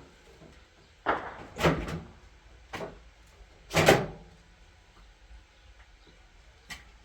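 A few separate knocks and bumps of things being handled, the loudest about four seconds in, with quiet between them.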